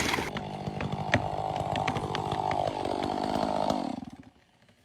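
Chainsaw engine running steadily, with a few sharp clicks. Its pitch sags a little, and it dies away to near silence about four seconds in.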